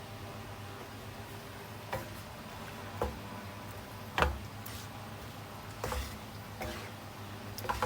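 Ground spice paste frying in oil over medium heat, with a low steady hiss and irregular sharp pops and clicks, about six of them, the loudest about four seconds in.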